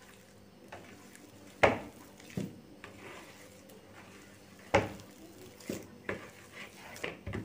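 Boiled potato being mashed and kneaded with spices by hand in a dish: soft rubbing with a handful of short knocks and clinks against the dish.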